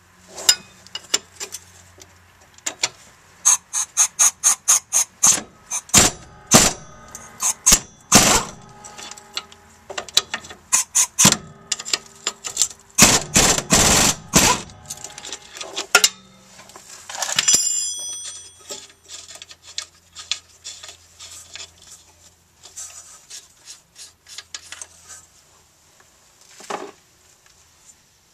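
Ratcheting wrench clicking in quick, even runs while loosening a rusted rear strut's lower mounting bolt, with metal-on-metal clinks. A single ringing metallic clink comes about two-thirds through.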